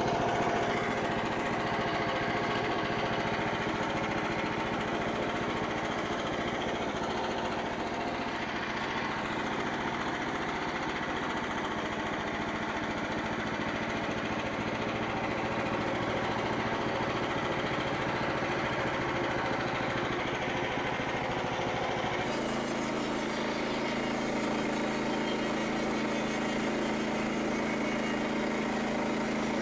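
Frontier OS27 sawmill's small gasoline engine running steadily. About three quarters of the way through the sound changes abruptly to a steadier, even drone.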